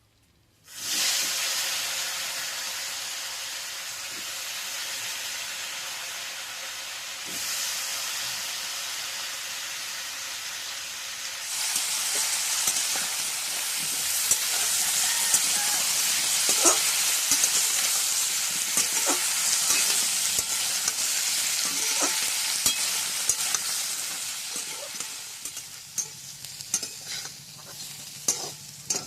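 Food going into hot oil in a pan and frying: a loud sizzle starts suddenly under a second in and grows louder about halfway through. Sharp clicks and scrapes of a spatula stirring in the pan join it, and the sizzle dies down near the end.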